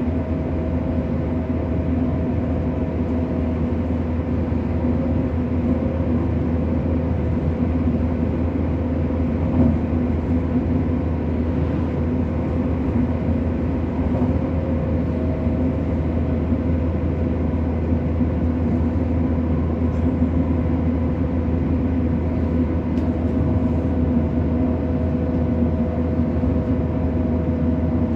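Passenger train running steadily along the line, heard from on board: a continuous rumble with a constant hum underneath.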